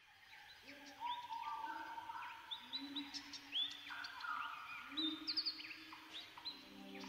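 Ambient background music fading in over the first second, with held synth notes that step in pitch and repeated short bird-like chirps over them.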